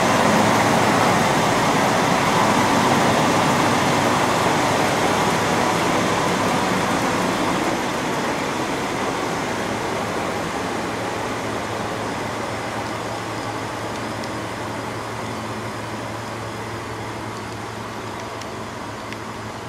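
Chizu Express HOT3500-series diesel railcar pulling away from the station platform, its diesel engine running under power and fading steadily as the car moves off.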